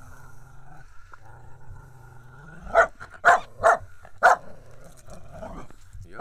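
Finnish Spitz giving a low, steady growl, then four sharp barks in quick succession about three seconds in and one more at the very end, barking for a stick held out of its reach.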